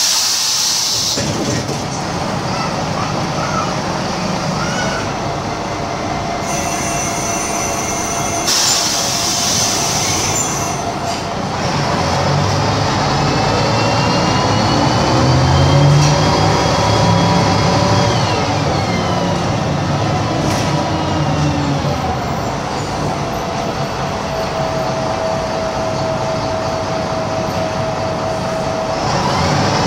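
Ikarus 260.46 bus with a Rába D10 diesel and Voith Diwa automatic gearbox running, heard on board. Air hisses briefly just after the start and again about nine seconds in. Engine and gearbox whine rises as the bus gathers speed to a peak around the middle, then falls away, settling into a steady whine near the end.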